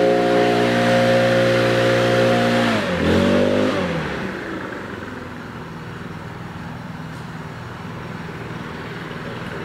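Stihl BR 800 backpack leaf blower's two-stroke engine running at full throttle with a rush of air, then throttled back about three seconds in: the pitch drops and it settles to a lower, quieter idle.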